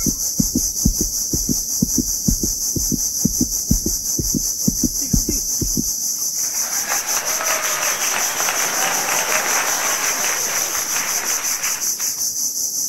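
Steady high insect buzz from the mangroves throughout. Irregular low thumps for the first six seconds, then a rasping from the Shimano Sienna 2500 spinning reel, from about six and a half seconds until about twelve, as a hooked fish is played.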